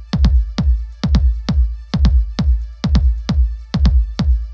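Background music with a steady, fast beat over heavy pulsing bass.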